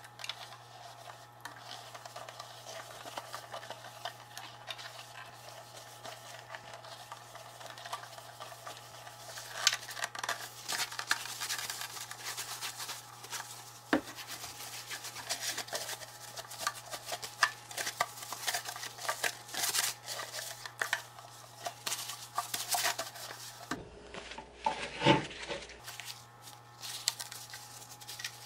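Wet paper towel rubbing against the plastic of a Vitamix blender jug as it is wiped clean, with irregular little knocks and clatters as the jug is turned and handled, over a steady low hum.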